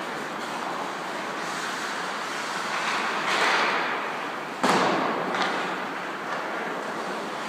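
Steady background din, with a sharp bang that has a short echo about four and a half seconds in.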